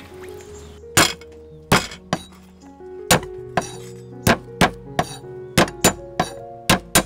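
A cleaver chopping garlic cloves on a thick round wooden chopping block: about a dozen sharp knocks at uneven spacing, over soft background music.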